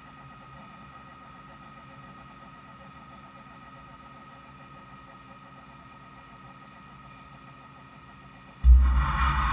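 Quiet steady machine hum from the idle Fadal VMC5020A vertical machining center. Near the end a sudden loud mechanical rumble starts from the machine.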